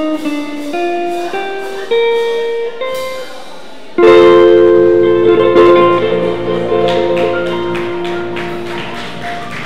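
Live jazz combo of archtop guitar, grand piano, upright bass and drums: a rising line of single notes, then about four seconds in the band strikes a loud chord that rings out and slowly fades.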